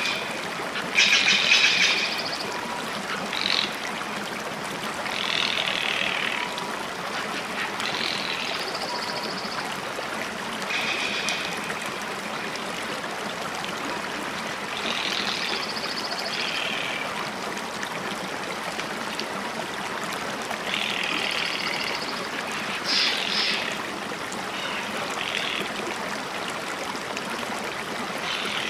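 Steady rush of flowing water, with short high animal calls, some trilled, every few seconds.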